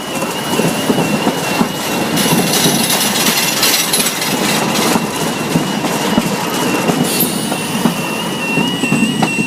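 Tyne and Wear Metro train running over a level crossing, its wheels rumbling and clattering on the rails, while the crossing's two-tone warbling alarm keeps sounding. The train noise drops away sharply at the very end.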